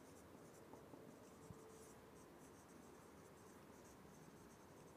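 Faint scratching of a marker pen on a whiteboard as words are written, over near-silent room tone, with one small tick about a second and a half in.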